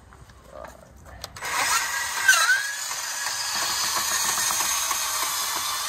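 Ridgid 18V cordless portable bandsaw starting up about a second and a half in and cutting through metal tubing at its top speed setting 6, a steady hiss with a brief squeal about two seconds in.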